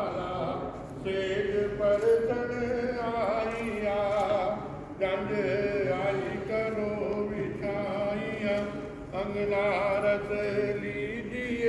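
A man's voice chanting wedding mantras for the pheras in a sing-song way, in phrases a few seconds long with long held notes and melodic turns.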